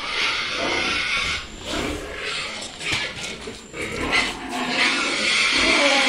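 Pigs squealing for feed, several long squeals with short breaks between them.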